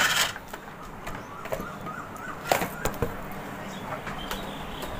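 A few light clicks and knocks of hands handling the opened induction cooker's boards and wiring as it is being switched on, over a low background hum.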